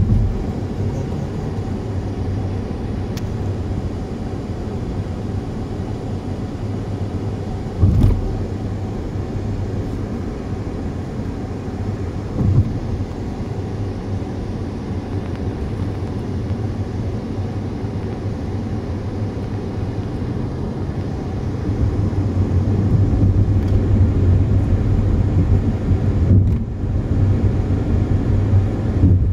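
Car driving at speed on a highway: a steady low rumble of tyres and engine. Brief thumps come about eight and twelve seconds in, and the rumble grows louder near the end.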